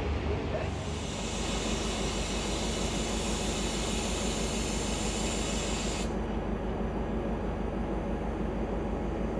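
Diesel engine of a Sri Lanka Railways Class S13 diesel multiple unit running steadily, with a high hiss over it that cuts off suddenly about six seconds in.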